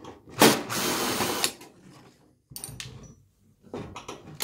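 Cordless drill-driver spinning to back out the steel case screws: a run about half a second in, a shorter, quieter one near three seconds, then a few light clicks before it starts again at the very end.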